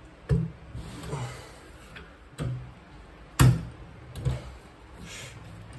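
Metal hand tools knocking and clanking on the engine in about four separate sharp strikes, the loudest just past halfway, while working at a clutch hub nut that will not come loose.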